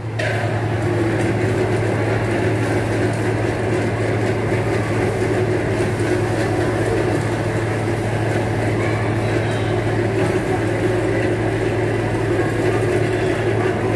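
Air blower of a floating-ball exhibit running steadily, pushing a jet of air up a tube: a steady low hum with a rush of air.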